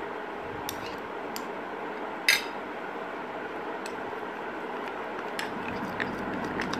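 Metal spoon scraping and clinking against a glass bowl while stirring a thick turmeric face-pack paste, over steady background noise. One sharp clink about two seconds in.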